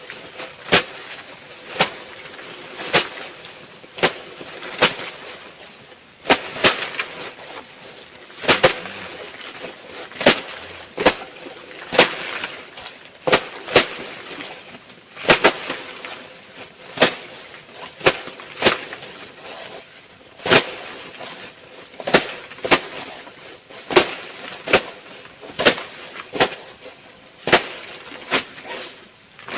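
Rice stalks being cut by hand with a sickle: a crisp, short cut roughly once a second, repeated at an uneven pace.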